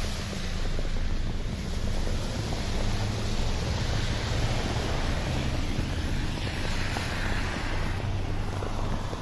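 Cars driving past on a snow-covered street, their tyres hissing through the snow, with wind rumbling on the phone's microphone throughout.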